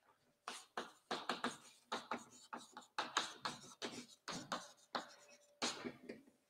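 Chalk tapping and scratching on a blackboard as words are written, a quick, faint run of short strokes.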